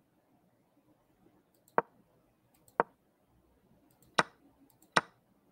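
Four sharp clicks, roughly a second apart, each one a move being stepped forward on an on-screen chess board.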